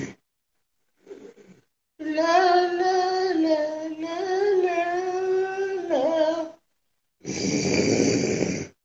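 A voice singing a long, wordless, high wavering note for about four and a half seconds, starting about two seconds in. It is framed by rough, snore-like breaths: one ending just as the sound starts, and another near the end.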